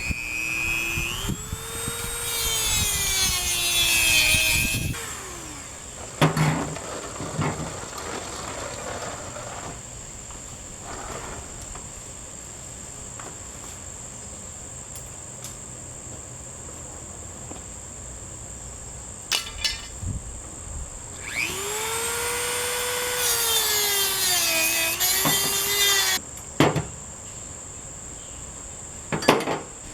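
A power saw run twice, about five seconds each, its motor pitch rising as it spins up and sagging as it bites into the cut. Scattered knocks and clatter come between the two cuts.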